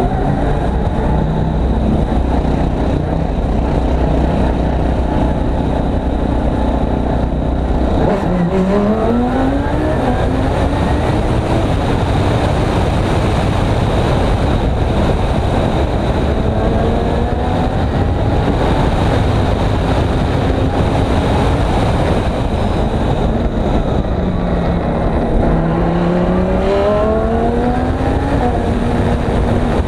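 Audi R8 LMS race car's 5.2-litre V10 engine, heard close from the roof just behind its air intake, running at a steady pitch at low speed for the first eight seconds. It then accelerates hard, the pitch climbing in repeated sweeps through the upshifts. Near the end the pitch falls as the car slows, then climbs again as it accelerates.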